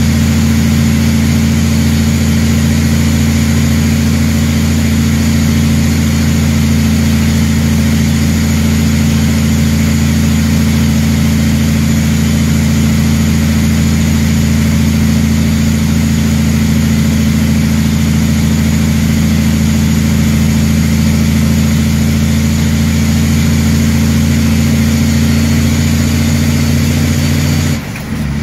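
Heavy diesel truck engine running steadily under load, heard from inside the cab while driving. Near the end the drone dips briefly, its pitch falling, and resumes on a different note, as in a gear shift.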